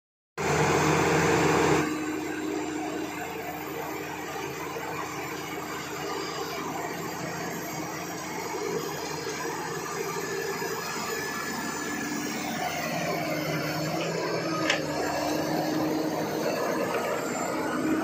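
Bulldozer's diesel engine running steadily, louder in the first second or so.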